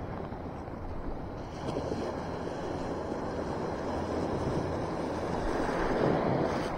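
Small sea waves breaking and washing around a wader standing hip-deep, with wind buffeting the microphone. The wash swells louder near the end as a wave rolls through.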